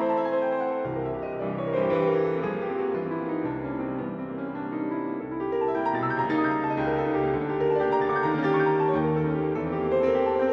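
Piano music playing slow, held chords and notes.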